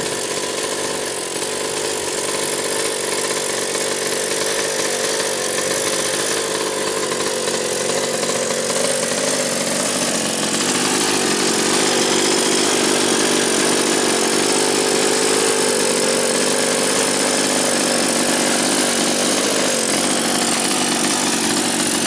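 Small engine of a large-scale RC car running on steadily and without a break, rising a little in pitch and loudness about halfway through. The radio link has been lost and there is no kill switch to stop it.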